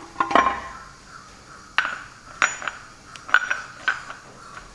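Steel gears and their shaft from a Chamberlain 9G tractor's front gearbox clinking against each other and the gearbox housing as the gear shaft is slid out: several sharp metal clinks, each with a short ring.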